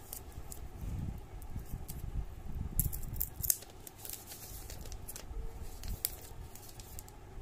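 Light plastic rustling and scattered clicks as a smartphone and a clear plastic case are handled, with a cluster of sharper clicks about halfway through.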